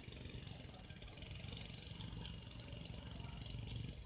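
An engine running steadily at idle, a low even rumble, with a light click about two seconds in.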